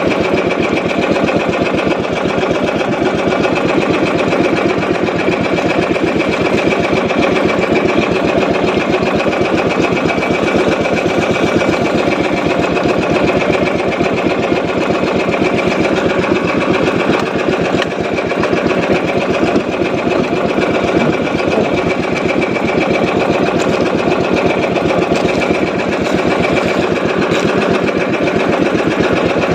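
Small boat engine running steadily with a fast, even chatter of firing strokes.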